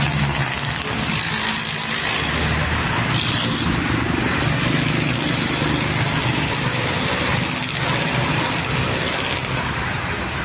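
Loud, steady crowd noise: a continuous hubbub of many voices during a fight.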